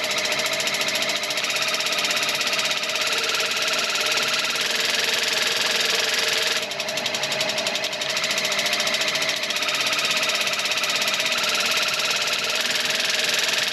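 Portable cordless water flosser (H2O Floss HF-6) running, its pump pulsing a thin jet of water into a bathroom sink with a steady, rapid buzz. The sound dips briefly about six and a half seconds in, then carries on.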